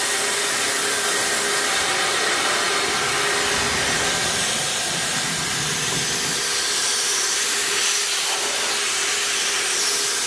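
Steady spray hiss from the flexible segmented nozzles of a VMC650 vertical machining center blasting onto the vise-held workpiece, over a faint steady machine hum.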